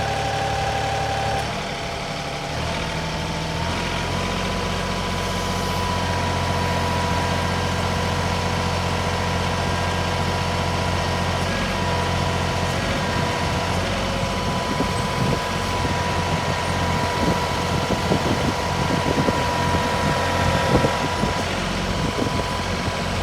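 Tractor engine running steadily under load while pulling a concrete-set power pole out of the ground. Its pitch rises a couple of seconds in and then holds.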